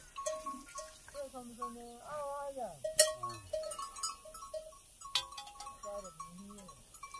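Cattle and buffalo neck bells clanking irregularly as the animals graze. A call that glides down in pitch comes about two seconds in, and a sharp knock, the loudest sound, about three seconds in.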